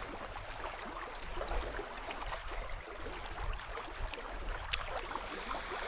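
Small sea waves lapping and gurgling among shoreline stones, a steady wash with faint scattered clicks and splashes.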